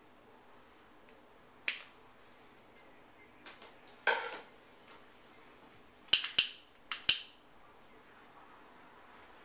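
A lighter being flicked, with several sharp clicks of its striker, the last four close together; from about eight seconds in a faint steady hiss follows as the flame burns, used to melt the freshly cut end of a paracord strand.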